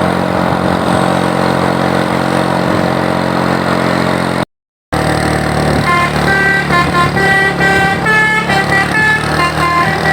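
A bus engine running steadily. After a brief dropout, a Basuri multi-tone 'telolet' bus horn plays a quick tune of short notes, stepping between several pitches over the engine.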